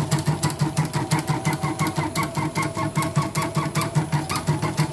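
CNY portable computerized embroidery machine stitching with its cover off, a rapid, even clatter of needle strokes. The freshly serviced mechanism runs smoothly, with no squeak.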